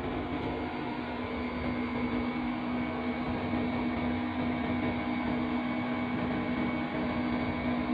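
Steady hum of a GE GEU-40 diesel-electric locomotive heard from inside its cab: one constant drone over an even mechanical rumble.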